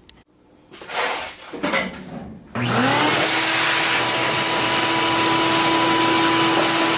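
A few knocks and scrapes of the shop vac being handled, then about two and a half seconds in its motor switches on, spinning up with a rising whine and settling into a steady loud whine and rush of air. The vac is running without its filter.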